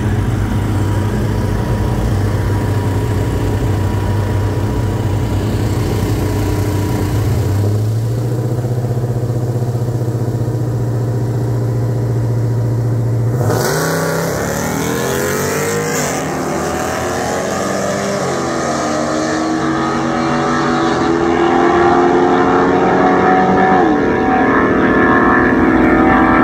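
Naturally aspirated RAM 1500 pickup's Hemi V8 idling at the drag-strip start line. About 8 s in it is held at a steady higher rpm. About 13 s in it launches, and the engine revs up with its pitch rising in steps through the gear changes as the truck pulls away down the track.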